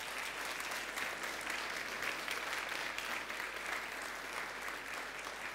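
An audience applauding after a talk, with dense, steady clapping throughout.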